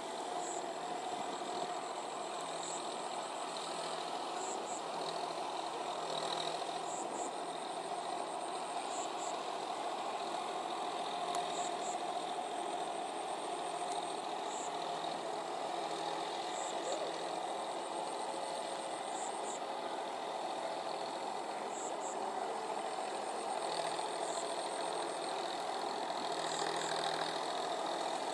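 John Deere 5045D tractor's three-cylinder diesel engine running steadily as it works through wet paddy mud on half-cage wheels. Faint, short, high-pitched chirps recur over it.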